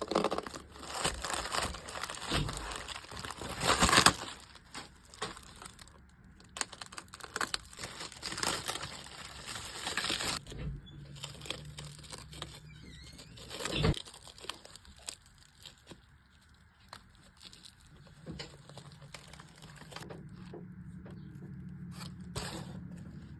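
Packaging being torn and crinkled open in rustling bursts for about the first ten seconds, loudest around four seconds in. A single sharp knock follows near the middle, and a faint low hum comes in near the end.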